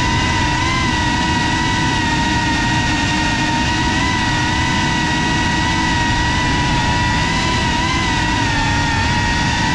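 FPV quadcopter's brushless motors and propellers whining steadily, pitch wavering slightly with throttle, as heard from the GoPro mounted on the drone.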